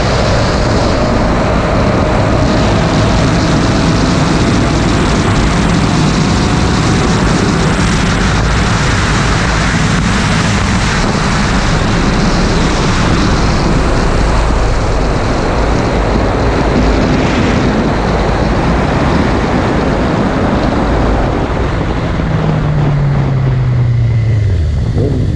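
A 600 cc inline-four sport bike cruising steadily at high speed, its engine drone mixed with a loud rush of wind over the microphone. Near the end an oncoming car passes, its sound falling in pitch as it goes by.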